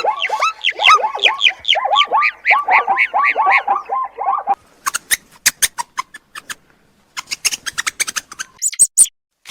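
Poultry calling: a quick run of short repeated calls, about five a second, for the first half, then a scatter of sharp clicks and a few high chirps.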